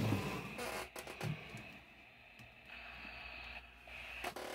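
A Grinch toy walkie-talkie handled and set down on a wooden table, with a knock and some clatter in the first second. After that comes a faint steady hiss from the switched-on walkie-talkies.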